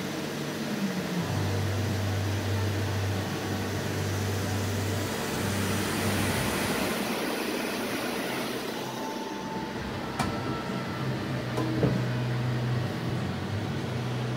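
Leadwell LT25 CNC lathe running with its spindle turning a metal workpiece: a steady mechanical noise with a low hum that drops in pitch about a second in. Two sharp clicks near the end.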